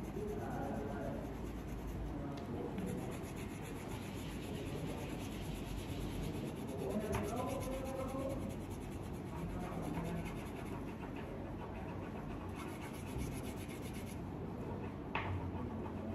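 Yellow crayon rubbing back and forth on paper as a honeycomb is coloured in: a steady scratchy shading sound, with one short tap near the end.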